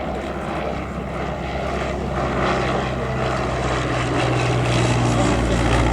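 Royal Aircraft Factory SE5a's 200 hp engine and propeller running steadily in flight, getting louder toward the end as the biplane comes closer.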